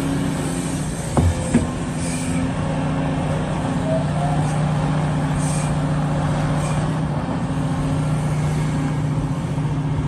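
Large Caterpillar hydraulic excavator's diesel engine running steadily as it digs, with two short knocks about a second in.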